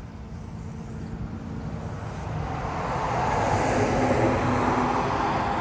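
A vehicle driving past: a rush of road noise that swells to its loudest about four seconds in, then begins to fade.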